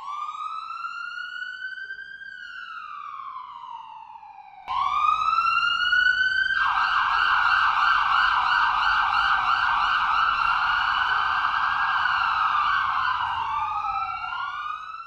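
Emergency-vehicle siren wailing in slow rising and falling sweeps. It cuts off about four and a half seconds in and starts again, then a fast yelping warble joins the wail from about six seconds in, and the two wind down near the end.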